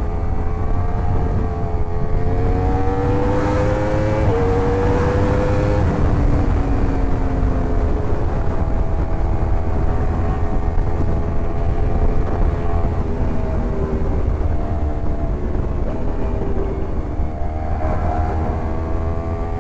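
Yamaha R1 inline-four engine under way while being ridden. The revs climb for a few seconds early on, then settle into a steady cruise, with wind rumble on the microphone.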